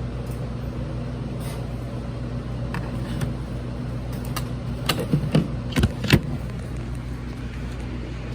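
Plastic alarm keypad housing being handled while it is pried open: a few sharp clicks and knocks about four to six seconds in, over a steady low hum.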